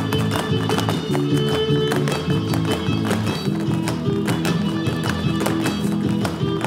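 Lively Mexican son huasteco dance music played back, with steady strummed rhythm and a melody line. Sharp taps of dancers' shoes striking the wooden floor in zapateado sound over the music.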